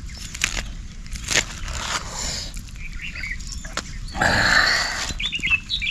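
A small knife scoring slashes into a whole red snapper, with scattered scraping and clicking cuts, then a louder crinkle of the plastic sheet about four seconds in as the fish is lifted and turned.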